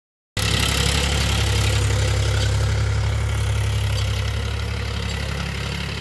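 Diesel engine of a Powertrac tractor running steadily under load as it pulls a disc harrow through a field, with a strong low hum. It starts abruptly about a third of a second in and eases off slightly in level toward the end.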